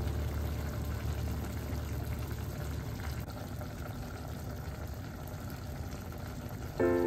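Squash, carrots and onion simmering in liquid in a pot, a steady bubbling. Music comes in near the end.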